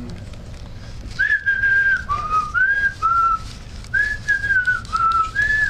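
A person whistling a tune: a string of short, clear held notes that step up and down in pitch, starting about a second in, over a low background hum.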